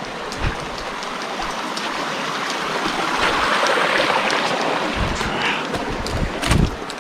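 Creek water rushing over rocks, a steady hiss that grows louder toward the middle. Several low thumps come near the end, the loudest about six and a half seconds in.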